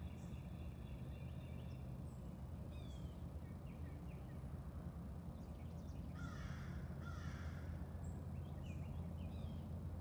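A crow cawing twice in quick succession about six seconds in, two harsh calls, over scattered short chirps of small songbirds and a steady low background rumble.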